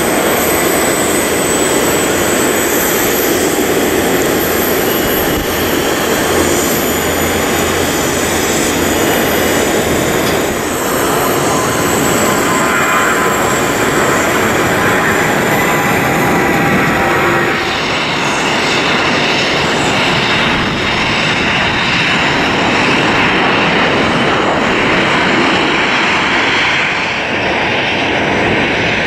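Jet airliner engines at high power as one aircraft after another takes off or lands: a steady loud roar with a thin high fan whine. The sound shifts abruptly about two-thirds of the way through, where one aircraft gives way to the next.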